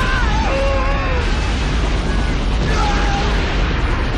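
Film sound of a lava geyser erupting: a loud, steady deep rumble and rush, with people screaming over it.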